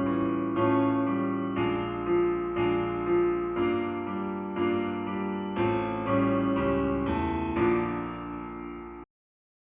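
Piano music played back through hi-fi floor-standing speakers in a listening test, notes and chords struck about every half second and dying away. It cuts off suddenly near the end.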